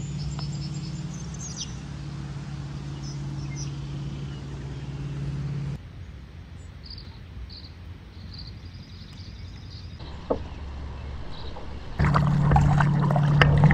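Small birds chirping over a steady low hum. The hum cuts off about six seconds in and comes back louder near the end, and there is a single knock about ten seconds in.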